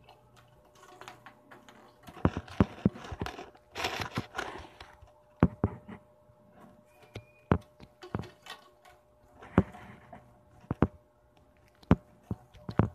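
About a dozen sharp, irregular knocks and taps, with a burst of rustling about four seconds in.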